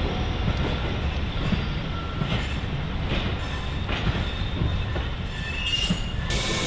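Railway coaches rolling away over pointwork and rail joints: a low rumble with irregular wheel clicks and brief high-pitched wheel squeals. Near the end it cuts abruptly to a steady hiss.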